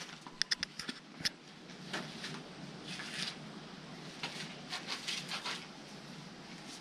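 Footsteps crunching on a gravelly, rocky walking track, irregular steps with a few sharp clicks of stone in the first second.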